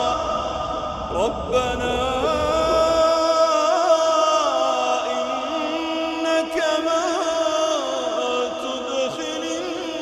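Solo voice chanting in a Middle Eastern style, holding long notes with wavering, ornamented turns, over a low rumble that drops away about three seconds in.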